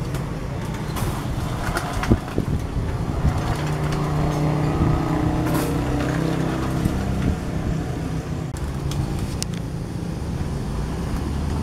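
Two-wheel hand tractor's engine running steadily as the machine is walked down a steep slope, with a single sharp knock about two seconds in.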